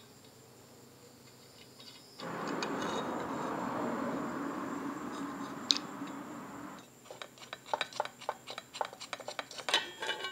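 Metal parts clinking and clicking as a steel bracket plate, bolts and an Allen key are handled on a motorcycle pannier rack, in quick irregular clicks over the last few seconds. Before that, a steady rushing noise runs for about four and a half seconds.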